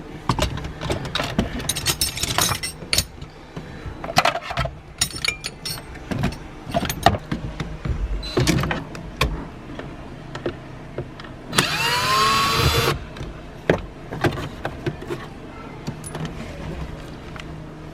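Scattered clicks, knocks and rattles of hand tools, screws and plastic trim while a Nissan 240SX dashboard is being taken apart. A little before twelve seconds in, a small electric motor whirs for about a second, its pitch sliding up and down.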